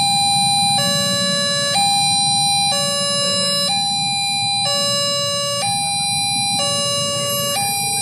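Railway level-crossing warning alarm sounding its two-tone signal, alternating between a higher and a lower tone about once a second, to warn of an approaching train. Idling cars and motorbikes rumble underneath.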